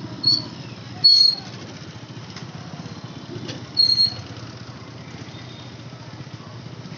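A motorcycle engine running steadily at low road speed. Three short, shrill, high-pitched tones cut through it: two within the first second or so, and a third about four seconds in.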